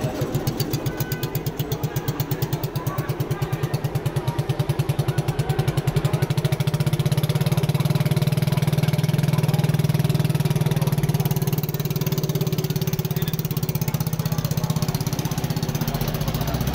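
Small engine of a home-built helicopter running up. Its pulsing beat quickens over the first six seconds or so, then it runs steadily.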